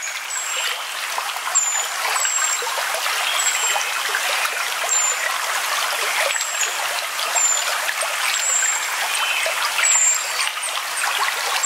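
A stream trickling and babbling steadily over stones, with a short, high chirp that falls slightly in pitch repeating about once a second.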